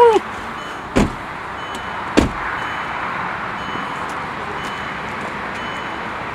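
Two car doors slamming shut, about a second and two seconds in, after a short pitched squeal at the very start; then a steady rushing noise of a car running.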